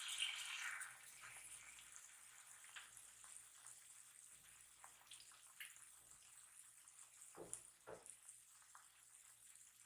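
Faint kitchen tap water running, fading out in the first second, then quiet with a few small clicks and drips.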